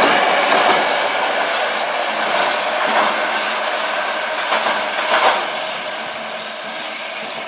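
Hankai Tramway tram running past on street-car track, its wheels clacking over the rail joints a few times, growing steadily fainter as it moves away.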